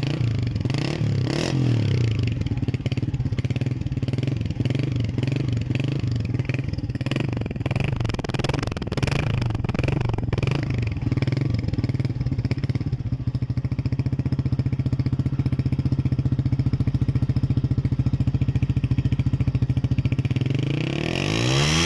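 2011 Sankie motorcycle engine idling steadily through its genuine (stock) silencer. Near the end the throttle is blipped once and the revs rise and drop back.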